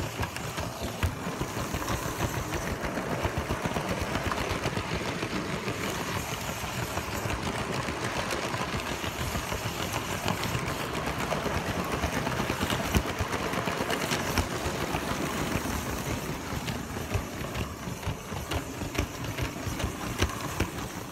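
Lego train's small electric motor running steadily, heard up close, with the quick even clatter of plastic wheels on plastic track and a few sharper clicks over the rail joints.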